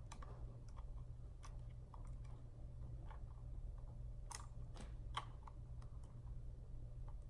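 Scattered light clicks and taps of long acrylic nails and fingertips on a Canon PowerShot G7 X Mark II compact camera's body as it is handled, with a sharper pair of clicks a little past the middle. A steady low hum runs underneath.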